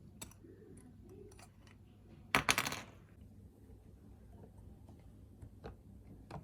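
Light scattered clicks, with one short rattling clatter about two and a half seconds in.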